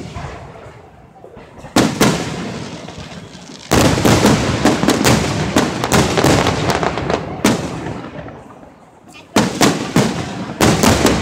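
Aerial firework shells bursting overhead: a sharp bang about two seconds in, then a dense run of bangs and crackling from about four seconds that dies away near nine seconds, and more bangs near the end, each bang trailing off in a rumble.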